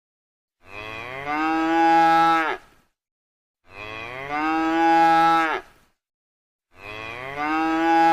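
Cow mooing three times, one identical long moo about every three seconds. Each call begins softly, swells louder and drops in pitch as it ends.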